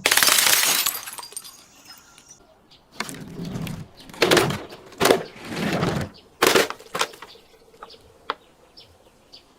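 Glass being smashed and crushed: a loud shattering crash at the start, then a run of crunching breaks about half a second to a second apart, trailing off into small tinkling clicks of shards near the end.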